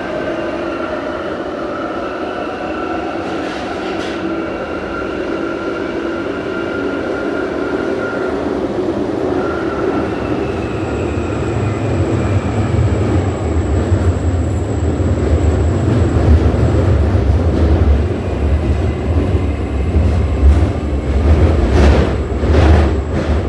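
Jubilee Line 1996 Tube Stock train heard from inside the carriage, running through the tunnel: a steady motor whine with tones that drift slowly down over wheel and track noise. About halfway through a heavier rumble builds and grows louder, and several sharp knocks come near the end as the train nears the next station.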